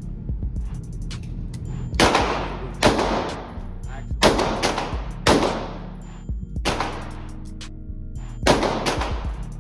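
Five gunshots at a shooting range, single shots at uneven intervals, each with a ringing tail, over background music.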